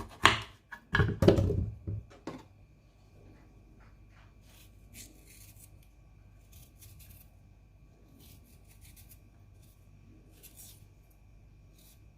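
Ginger root being peeled by hand. There are a few sharp knocks and scrapes in the first two seconds, then faint scraping strokes every second or two over a faint steady hum.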